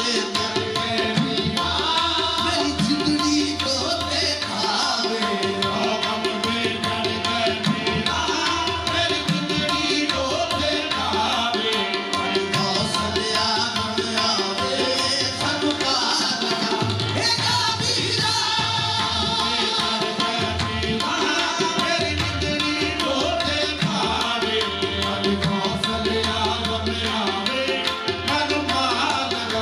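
Live qawwali: two harmoniums and tabla accompanying the lead singers and chorus, in a steady, continuous performance.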